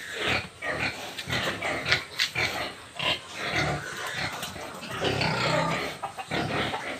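Pigs grunting in a run of short, irregular grunts, with a few knocks, as a boar noses a gilt that is coming into heat.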